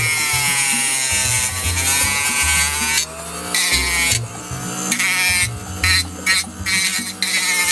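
Dremel rotary tool on a flexible shaft, its sanding drum grinding the excess off a model car body. The high whine sags in pitch as the drum bites, then comes in short bursts in the second half.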